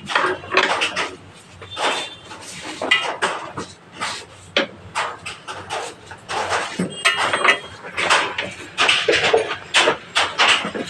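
Irregular clinking and clattering of metal tools and engine parts being handled, with a few short metallic rings, during motorcycle engine reassembly.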